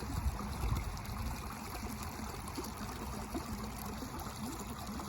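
Steady rushing outdoor background noise with a low rumble underneath.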